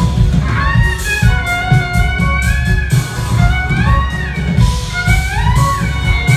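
Jazz-fusion band playing live: a violin lead sliding up and down in pitch over electric bass, keyboards and drum kit.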